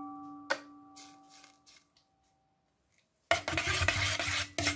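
Metal spoon clinking against a stainless steel bowl, which rings with a clear tone that dies away, with a second clink about half a second in. From about three seconds in, the spoon scrapes steadily as it stirs chili paste around the metal bowl.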